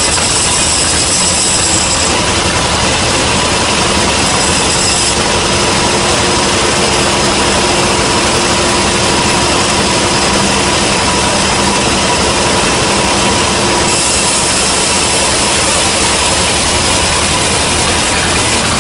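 Band sawmill machinery running: a loud, steady mechanical noise with a thin high whine.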